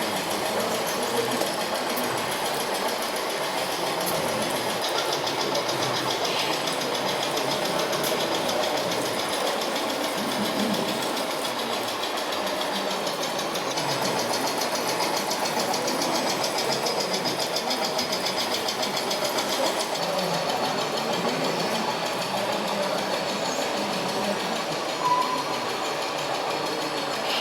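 Small electric motors and gearboxes of radio-controlled model vehicles whirring steadily, with a fast, even ticking. A short beep sounds near the end.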